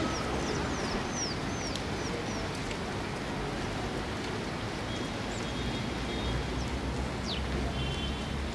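Steady background noise with a bird chirping: a quick run of short, high, falling chirps in the first couple of seconds, and a few more brief calls later.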